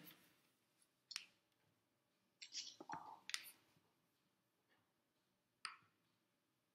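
Near silence broken by a few faint clicks and short rustles: one about a second in, a small cluster around three seconds, and another near the end.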